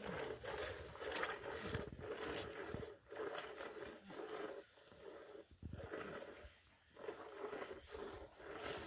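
Milk squirting in quick, rhythmic jets into a plastic container as a cow is milked by hand, each squeeze of the teats giving a short frothy splash.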